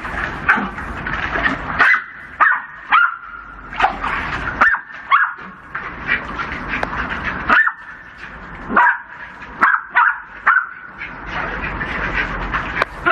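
Jack Russell terriers yipping and barking excitedly in many short, high-pitched calls at irregular intervals, with a thin whine between some of them.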